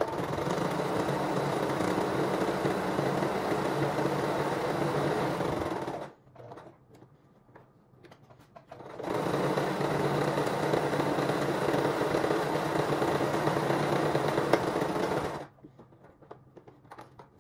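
Singer Start 1304 electric sewing machine stitching a fabric seam in two steady runs of about six seconds each, with a pause of about three seconds between them. It stops a couple of seconds before the end, leaving a few faint handling sounds.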